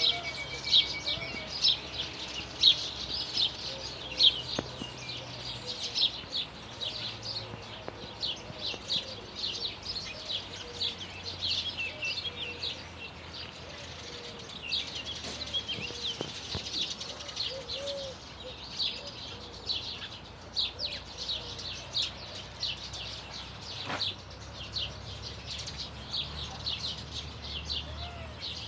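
A chorus of birds singing, with many quick high chirps overlapping throughout. A faint low hum runs underneath.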